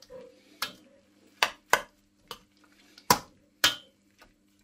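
A metal spoon stirring beef mince and chopped vegetables in a stainless steel wok: about seven irregular scrapes and knocks of metal on metal.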